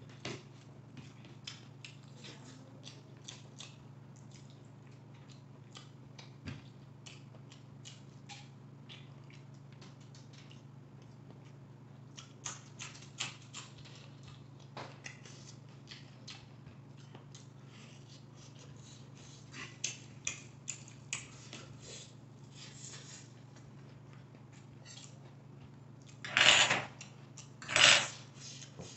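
Close-miked mukbang eating sounds: wet chewing, lip smacks and mouth clicks as a man eats Maggi noodles by hand, over a steady low hum. Near the end come two loud rushing sounds, each about half a second long and about a second apart.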